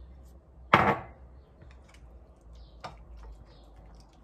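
One sharp knock, like a hard object set down on a table, about a second in, followed by a faint click near the three-second mark.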